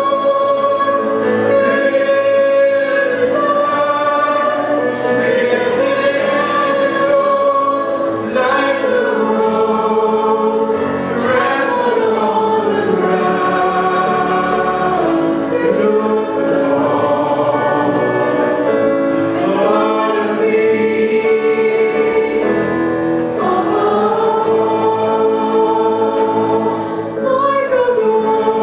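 Live contemporary worship band playing: several voices, women and a man, sing together into microphones over acoustic guitar, electric guitar and keyboard.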